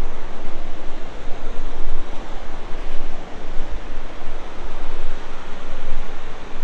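The Sooke River rushing over rapids and a small waterfall in the rocky gorge below: a loud, steady rush of water.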